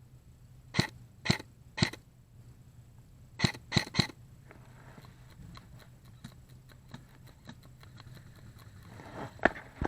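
Airsoft gun firing single shots as sharp pops: three spaced about half a second apart, a quicker group of three a couple of seconds later, then faint ticks and one more shot near the end.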